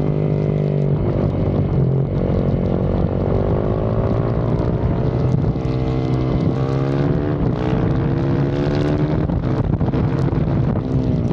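Yamaha YZ450FX's 450 cc single-cylinder four-stroke engine pulling hard on track, its pitch climbing steadily, dipping briefly about six and a half seconds in, then climbing again, with wind rushing over the low-mounted camera's microphone.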